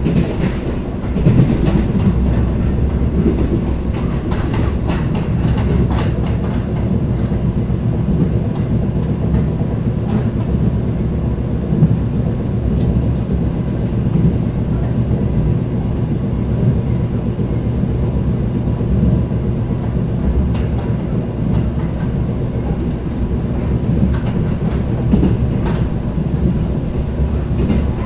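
Korail passenger train running along the track, heard from inside the carriage: a steady low rumble with scattered sharp clicks from the wheels on the rails.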